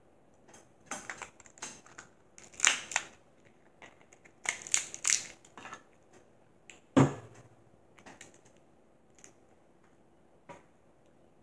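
Dungeness crab leg shells cracking and crunching at close range in several bursts of crackles, with one heavier knock about seven seconds in and a few lighter ticks after it.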